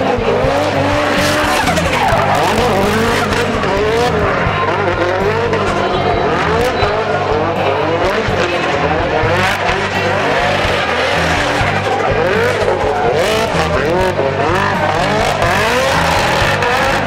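Drift car's engine revving hard, its pitch rising and falling again and again as the driver works the throttle, with tyres screeching as the car slides sideways.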